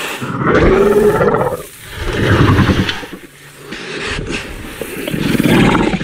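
Therizinosaurus creature sound effects from a film's sound design: three long roars in succession, each swelling and fading, with quieter growling between them.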